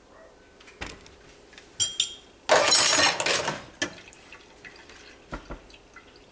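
Utensils clinking and knocking, one with a short glassy ring, then about a second of running water in the middle, the loudest sound, followed by a few softer knocks.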